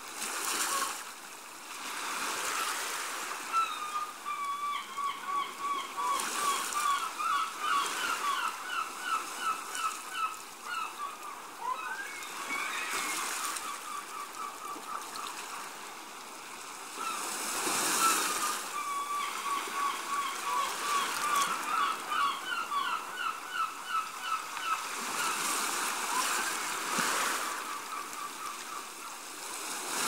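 Small waves washing onto a sandy beach in surges every few seconds. Over them a bird calls twice in a long run of quick repeated notes, each run lasting about seven seconds.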